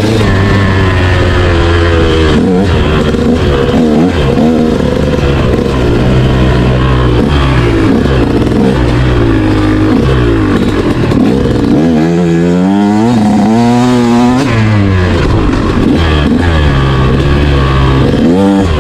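Motorcycle engine revving, its pitch rising and falling repeatedly as the rider works the throttle and gears.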